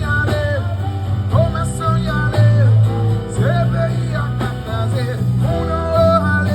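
Band music: a heavy, steady bass line under a gliding melodic lead line.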